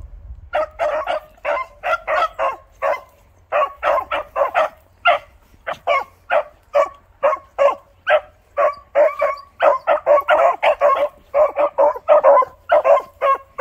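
Beagles barking while trailing a scent: a steady run of short, rapid barks, about three a second, the hounds giving voice on the track.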